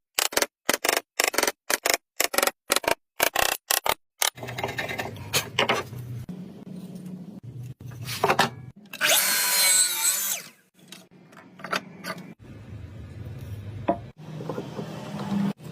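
A power tool running and working wood. It opens with a quick run of short, sharp bursts, about five a second. About four seconds in it settles into a steady running hum, with a loud cutting stretch about nine seconds in.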